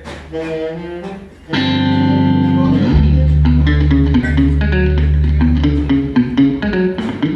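A band plays electric guitar and bass guitar. A few single plucked notes give way to a loud ringing chord about a second and a half in, and a steady bass line joins at about three seconds.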